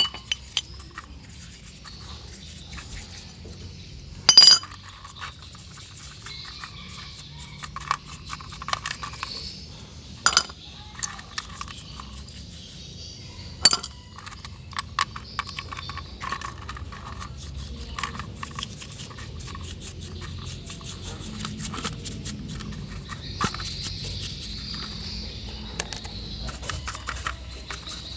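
Small metal carburetor parts and hand tools being handled: irregular clicks and taps, with a few sharp metallic clinks that ring briefly. The loudest comes about four seconds in.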